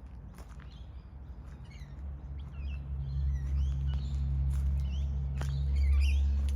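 Small birds chirping in short rising and falling calls, with a few sharp clicks. Under them a low, steady motor-like hum swells up from about a third of the way in and is loudest near the end.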